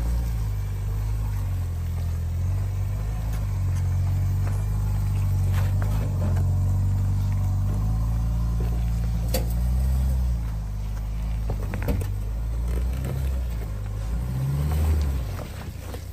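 Ford Bronco Sport's engine running at low revs as it crawls over loose rocks, rising in pitch twice, most strongly near the end, with a few sharp clicks of stones under the tyres.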